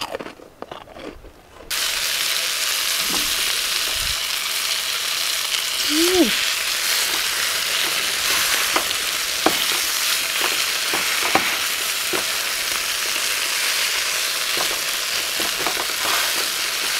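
Crumb-crusted fish fillets frying in hot oil in a pan: a steady sizzle with scattered small pops, cutting in abruptly about two seconds in.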